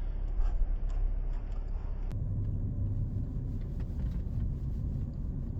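Steady low rumble of a car on the move, with an abrupt change in the sound about two seconds in.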